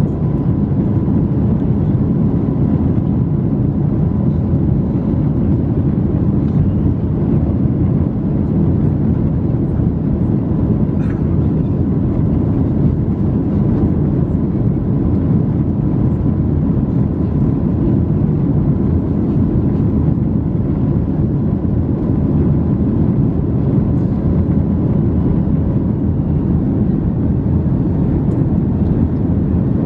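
Airbus A321neo's Pratt & Whitney geared turbofan engines and rushing airflow, heard inside the cabin as a steady, loud, deep rumble at climb power just after takeoff, with a faint steady whine above it.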